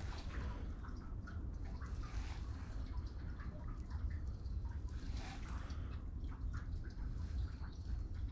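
Faint trickling and small splashes of water over a low, steady rumble of wind on the microphone.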